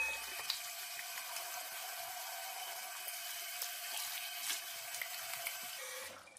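Water running steadily from a bathroom basin mixer tap into the sink, splashing over hands being washed under the stream; the flow stops near the end.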